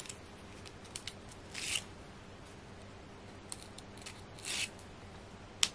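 Quiet hands-on crafting sounds: two short, crisp rasps like scissor snips or card and foam-pad backing being worked, and a few sharp little clicks, the loudest near the end.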